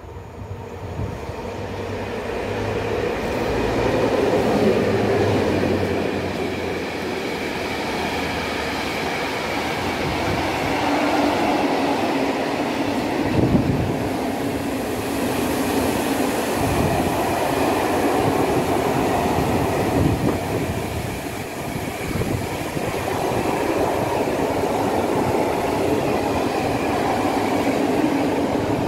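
A Class 232 'Ludmiła' diesel freight locomotive passes with its engine humming, followed by a long train of loaded coal gondola wagons rolling by. The wagons give a steady rumble of wheels on rail with clatter over the joints, and one sharp knock about halfway through.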